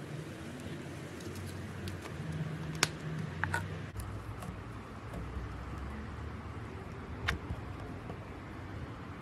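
Clear slime with small coloured squares mixed in, pressed and kneaded by fingers: soft sticky squishing with a few sharp clicks and pops.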